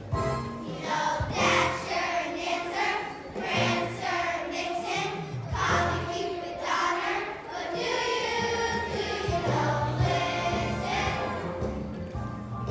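Children's choir singing in unison with an instrumental accompaniment that carries a bass line.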